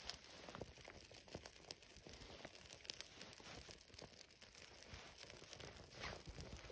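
Small tinder fire of papery bark and dry leaves crackling faintly, with scattered light crackles and the rustle of bark handled at the flame.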